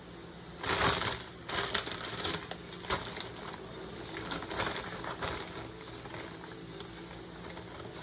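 Kitchen cooking noise: a loud rush of noise just under a second in, then a few seconds of irregular clicks and clatter before it settles to a steady background.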